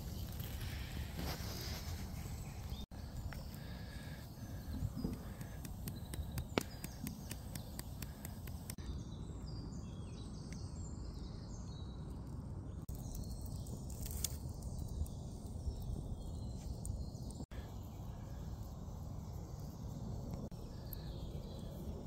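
Wood campfire crackling with scattered sharp pops over a low steady rumble, with faint bird calls.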